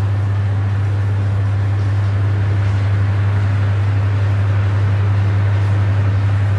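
Panasonic FV-25TGU2 10-inch six-blade ceiling exhaust fan running at full speed: a steady, strong low motor hum under the even rush of air through the blades and grille.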